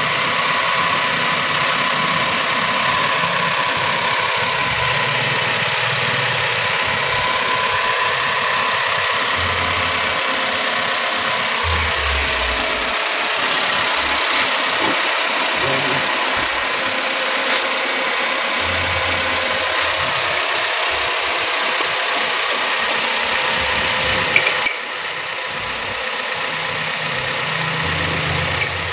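Honda Mobilio's 1.5-litre four-cylinder i-VTEC engine idling steadily with the bonnet open. The sound drops abruptly about 25 seconds in. A couple of sharp clicks come near the end.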